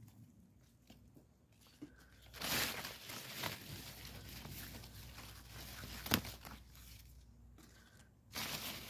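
Quiet rustling and handling noise in a few short spells, as the strawberry plants' leaves are brushed and moved, with one sharp click about six seconds in.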